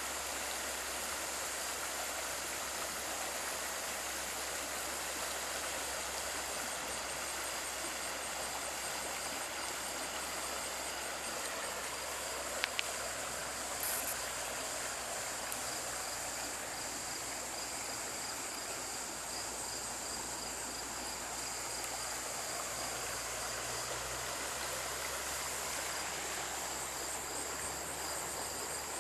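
Steady rush of a stream with insects chirping in rapid, even pulses over it. There are a couple of brief clicks about halfway through.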